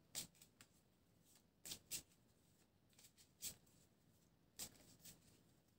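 Faint, short rustles and flicks of paper cards being handled, about eight to ten in all, with a louder pair about two seconds in.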